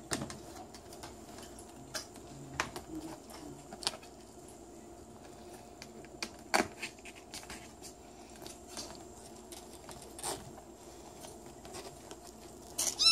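Scattered light taps and rustles as kittens move about on a blanket and plastic mesh, then a kitten meows once near the end.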